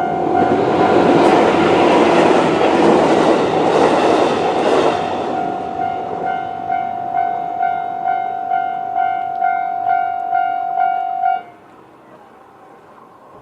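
A JR 211 series electric train rushes past for the first few seconds while a Japanese level-crossing warning sounder rings its electronic bell tone about twice a second; the bell keeps ringing after the train noise fades and cuts off suddenly near the end, as the crossing clears behind the train.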